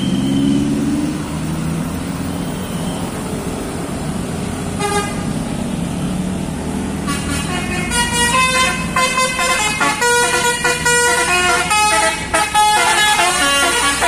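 Traffic running past on a road bend, with a short horn toot about five seconds in. From about seven seconds in, a tour bus's multi-tone 'telolet' horn plays a quick tune of changing notes, one after another, over the engines.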